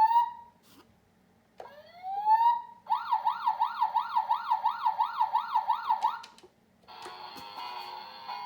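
Toy police car's electronic siren: two rising whoops, then a fast up-and-down yelp of about three cycles a second for some three seconds. After a short gap near the end, a different electronic sound of steady tones begins.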